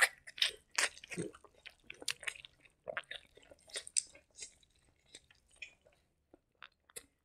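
A person chewing a big handful of rice and boiled egg curry eaten by hand, with wet mouth clicks and smacks. They come thick for the first four seconds or so, then thin out to a few small clicks.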